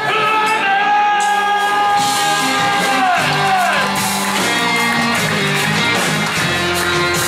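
A singer with a live band performing; a long held sung note slides down in pitch about three seconds in, over steady instrumental backing.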